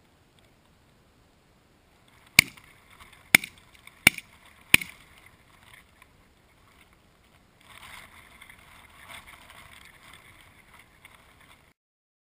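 A volley of four shotgun shots about three-quarters of a second to a second apart, from goose hunters firing at a goose. Several seconds later comes a stretch of fainter, rough noise.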